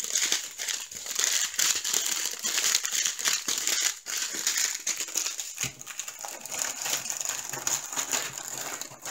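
Clear plastic bag crinkling and crackling as it is handled and squeezed, a dense run of small crackles that turns quieter over the last few seconds.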